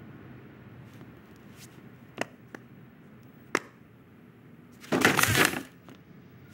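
Film sound effects: a few sharp clicks and knocks, then a loud, noisy crash-like burst lasting about half a second near the end.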